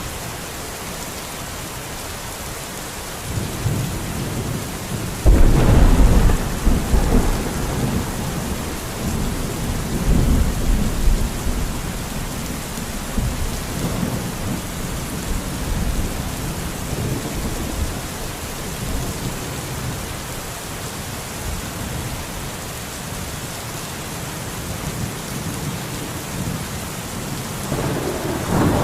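Steady rain hissing, with a rumble of thunder building about three seconds in and breaking into a loud clap about five seconds in. The thunder rolls on for several seconds, and another peal starts near the end.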